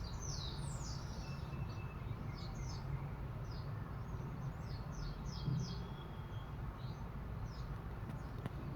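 Small birds chirping, many short quick calls falling in pitch, over a steady low rumble.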